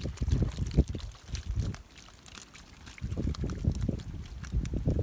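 Wet splashing and slapping of live fish flopping in shallow muddy water in a net as hands pick through them, in irregular bursts with a short lull about two seconds in.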